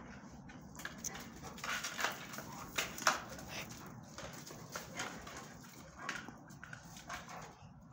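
Two dogs romping on gravel: irregular crunching and scuffling of paws, loudest around two to three seconds in.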